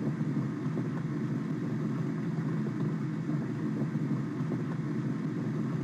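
Steady low rushing noise of the simulated fill valve pouring water into the tank in Factory I/O, unchanging while the tank fills.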